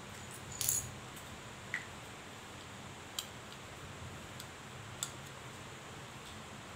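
Handling noises from a black plastic chest-strap phone clamp mount and its packaging: a short crinkle of plastic wrap about half a second in, then single sharp plastic clicks about a second and a half apart, over a low steady background hum.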